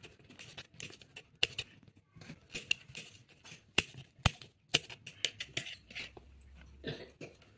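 Kitchen knife slicing fresh green chillies on a chopping board: a quick, irregular series of sharp chops, two or three a second.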